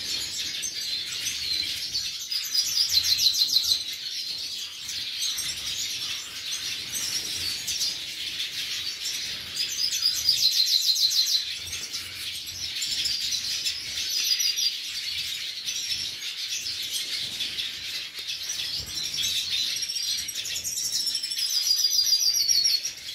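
A mixed group of captive siskins (black-headed, yellow-bellied, hooded and related Spinus finches) twittering constantly, with three louder, fast rattling trills: about three seconds in, around ten seconds and near the end.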